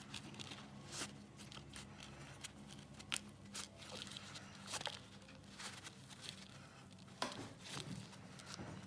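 Faint rustling and scuffing of a fabric multitool pouch being handled, with scattered light clicks and taps as the tool is pushed in and the flap worked closed.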